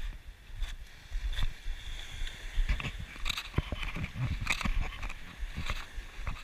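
Footsteps crunching on beach pebbles and cobbles, irregular and more frequent in the second half, over a low rumble of wind on the microphone.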